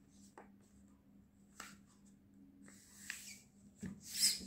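A4 paper sheet rustling and crinkling as hands crease and flatten it on a table: a few faint crinkles, then a louder sliding rustle near the end.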